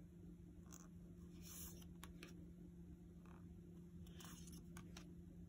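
Near silence, with several faint, short swishes and light ticks of oracle cards being slid off the deck and laid down one after another. A low steady hum runs underneath.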